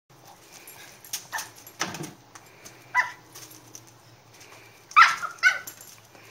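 A schnoodle, a small dog, barking in several short barks, with the two loudest coming in quick succession about five seconds in.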